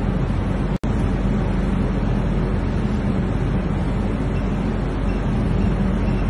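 Steady loud mechanical roar with a low hum, broken once by a brief dropout just under a second in.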